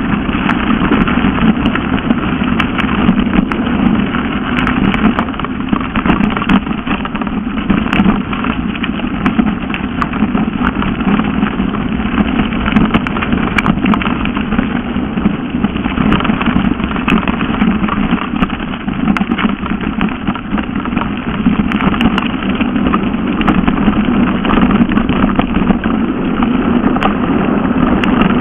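Mountain bike running fast downhill on a dirt and gravel track: a steady rumble from the tyres and riding, with frequent small rattles and knocks from the bumpy surface.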